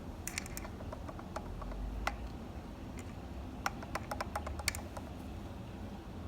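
Boosted Board V2 right motor clicking: sharp, irregular clicks in small clusters from lateral play in the motor shaft, a sign the uploader puts down to a bent motor shaft or failed motor shaft bearings.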